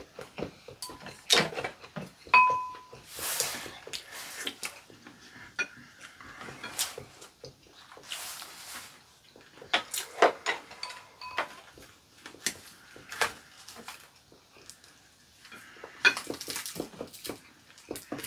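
Eating sounds at a meal: chopsticks clicking and tapping against ceramic bowls and plates, one tap leaving a brief ring about two seconds in, with chewing and slurping between the clicks.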